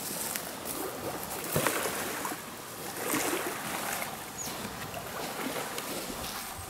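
Water lapping and sloshing, as around a small boat on a lake, with a few light knocks and clicks.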